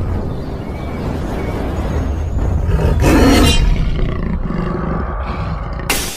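Big-cat roar sound effect: a long, low, rumbling roar, loudest about three seconds in. A sudden crash hits near the end.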